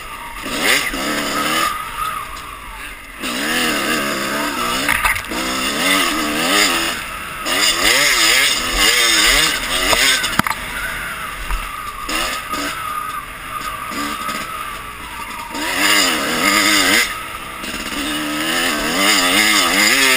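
Dirt bike engine running hard under the rider, its pitch rising and falling again and again as the throttle is worked through the trail's turns and bumps.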